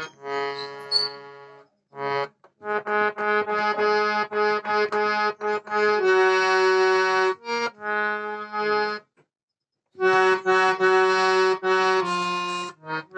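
Harmonium played by hand: a run of reedy notes, some short and some held, stopping briefly about two seconds in and again around nine seconds.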